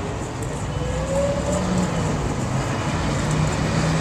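A vehicle engine running steadily, with a brief rising whine about a second in.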